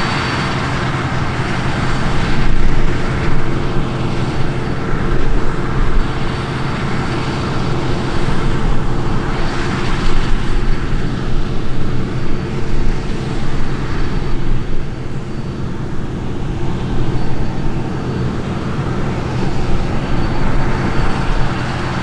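Claas Lexion combine harvester running under load while harvesting barley: a loud, steady engine and threshing drone with a constant low hum, swelling slightly now and then.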